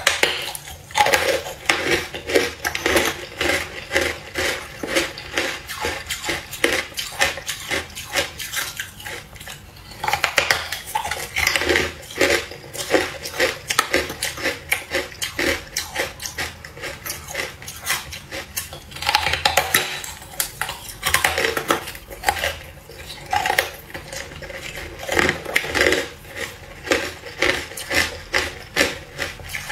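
Carbonated ice bitten and chewed close to the microphone: dense, crackly crunching in several bouts, with brief lulls between bites.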